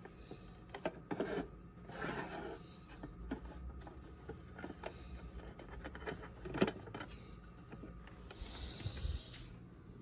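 Plastic clicks, knocks and rubbing from handling the water tank of a small Hysure George dehumidifier as it is pulled out of the unit and carried, with a faint steady hum underneath.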